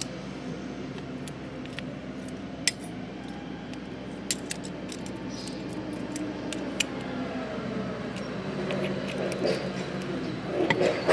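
Small metal compressor valve parts clicking and clinking as they are handled and set onto the valve plate, with a few sharp clicks spread through and a busier clatter near the end. A steady low hum runs underneath.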